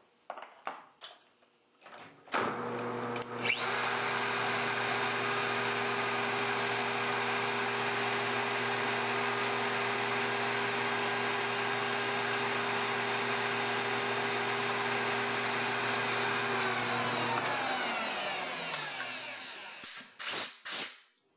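Live-tooling spindle motor clamped on the lathe carriage starts after a few clicks and runs steadily at high speed while its chamfer bit chamfers the bore of a cue's joint ferrule. It then winds down with falling pitch, and a few short blasts of compressed air follow near the end.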